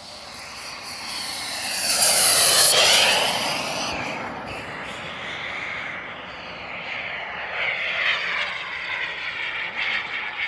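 Kingtech K-260 turbine of a large RC jet making a fast pass: its whine and rush swell to a loud peak about two to three seconds in, then fall in pitch as it goes by. A second, lighter swell comes near the end.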